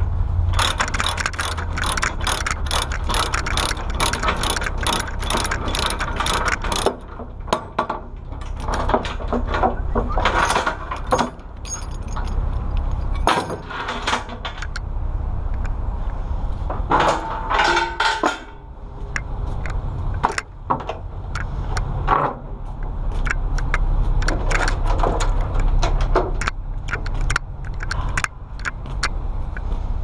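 Tie-down chains and their binders being released and pulled off a trailer deck: irregular clanking and rattling of steel chain and hardware, over a steady low rumble.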